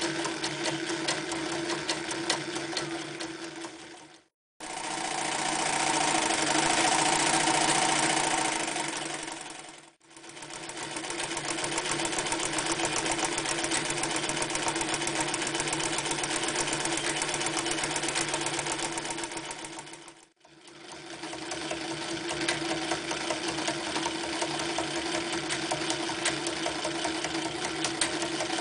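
Singer 316G sewing machine running, zigzag-stitching through four layers of leather and then four layers of sailcloth: a steady motor hum with fast, even needle ticking. The sound cuts off suddenly about four seconds in, then comes back in three runs, each picking up speed and slowing to a stop, with brief breaks about ten and twenty seconds in.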